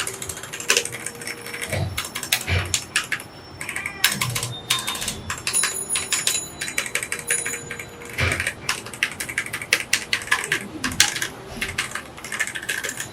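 Kreo Hive 98 mechanical keyboard with linear red switches being typed on: rapid, irregular keystroke clacks in quick runs.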